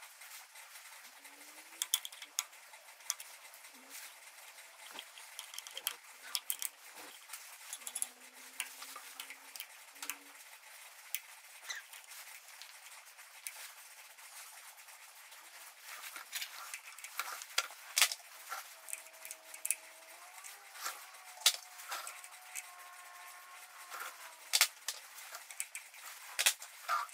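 Scattered small metallic clicks and taps of a screwdriver and loose parts being worked in a tractor distributor as the breaker points and condenser are removed, with faint squeaky tones now and then, longest in the second half.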